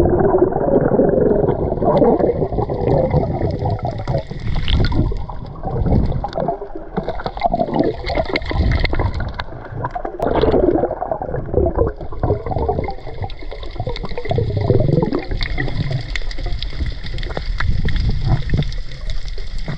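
Sea water sloshing and gurgling in the shallows, in uneven surges that rise and fall every second or two.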